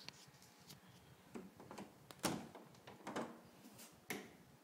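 Bathroom door being handled and opened: four short knocks and rattles about a second apart, the loudest a little past the middle.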